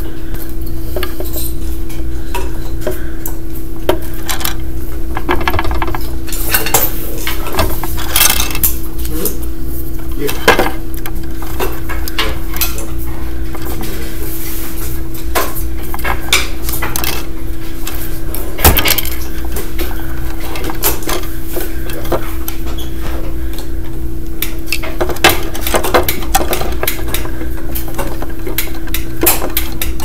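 Scattered metal clicks, clinks and scrapes of a screwdriver and pliers working electrical wires against a metal switch box, with a few sharper knocks, over a steady hum.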